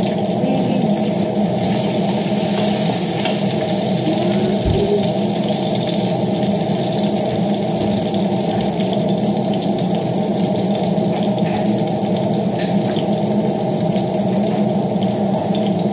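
Steady sizzling hiss from chicken cooking in a large pot on the stove, over a steady low hum.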